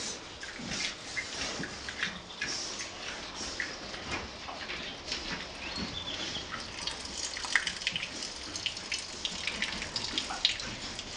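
Pigs rooting and shuffling about on a dirt pen floor: a busy run of snuffles, small clicks and hoof scuffs, with a couple of louder knocks in the second half.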